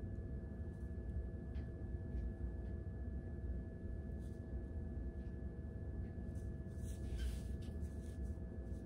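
Steady low background hum with a faint constant tone, and a few soft brief rustles of hair being twisted and handled by hand, the clearest about seven seconds in.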